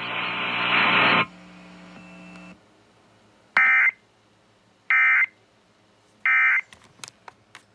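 Clock radio's sound cuts off about a second in, leaving a low hum that stops a little later. Then three short electronic beeps, evenly spaced about a second and a half apart, and a few faint clicks near the end.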